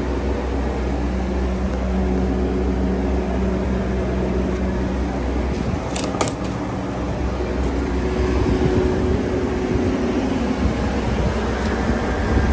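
Steady drone of running machinery with a strong low hum. The hum weakens about halfway through, and two sharp clicks come close together around six seconds in.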